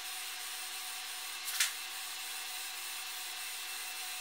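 Aerosol spray can of clear lacquer hissing steadily as it sprays a fine mist. One short sharp sound about one and a half seconds in.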